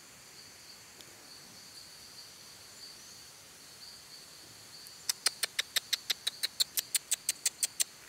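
A rapid, even run of sharp clicks, about seven a second, starting about five seconds in, over a faint steady high-pitched insect drone.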